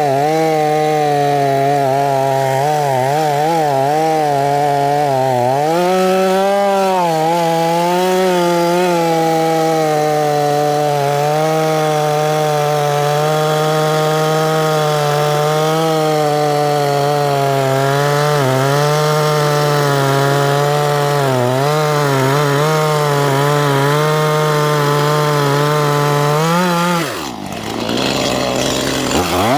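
Stihl chainsaw running under load, cutting wood, its engine pitch wavering as it bites. Near the end the engine drops off briefly and revs back up.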